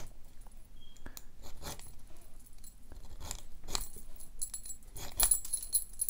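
Small hand file rasping in short back-and-forth strokes across the steel shackle of a 700-clone cross-lock padlock, with the keys hanging in the lock jingling on their chain a few times. The file bites deep, a sign the shackle is not well hardened.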